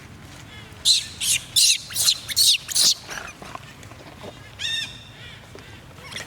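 Monkey giving a quick run of about six shrill screeches in the first three seconds, then one more about four and a half seconds in.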